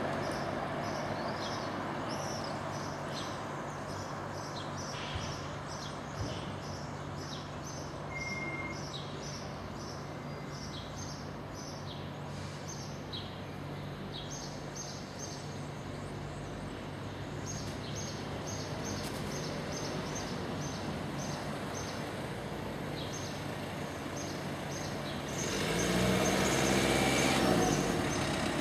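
City street traffic noise with a small bird chirping over and over in short high notes. Near the end a vehicle passes close by and the sound swells.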